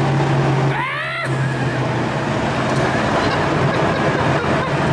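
Turbocharged 5.3 V8 in a methanol-fuelled Fox-body Mustang running, heard from inside the cabin as a steady low drone. About a second in there is a short break with a few quick rising chirps, then a broader rushing engine and road noise.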